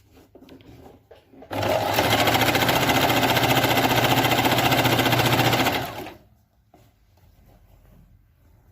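Singer Fashion Maker 8280 electric sewing machine stitching a wide zigzag at a steady speed, with a fast even needle rhythm. It starts about a second and a half in and stops after about four and a half seconds, with a few faint clicks before and after.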